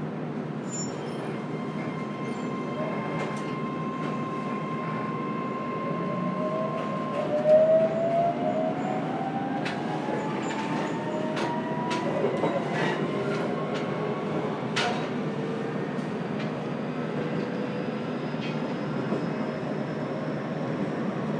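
Running sound inside a JR Kyushu 303 series electric train's motor car. A steady inverter tone gives way, about six seconds in, to a motor whine rising in pitch as the train accelerates, over rumbling running noise and scattered clicks from the wheels on the rail.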